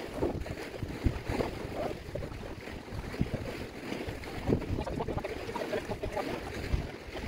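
Wind buffeting the microphone in uneven gusts, over sea washing against the rocks.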